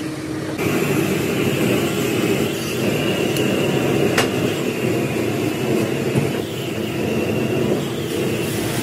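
Steady mechanical rumble of running machinery with a faint high whine over it, and a single sharp knock about four seconds in.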